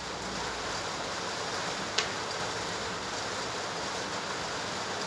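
Steady hiss of background noise with one light click about two seconds in, from small hand-tool work on the metal pinion gear of a CNC machine's rack drive.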